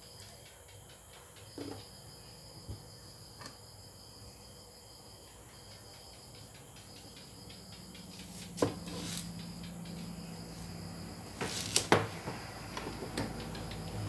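Kitchen knife cutting through a watermelon onto a wooden chopping block: scattered sharp knocks, more of them in the second half, with the loudest near the end.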